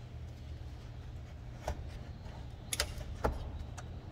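A few light metallic clicks and taps, about three in under two seconds, as the metal frame of a Ford C-Max lithium cell module is worked loose by hand, over a steady low hum.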